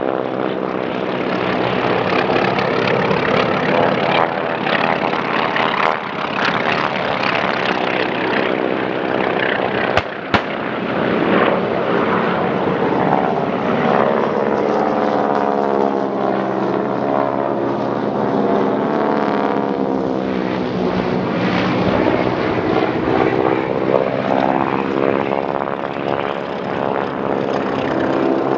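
Several radial-engine propeller planes making low passes, the engine drone rising and falling in pitch as each one flies by, with a single sharp crack about ten seconds in.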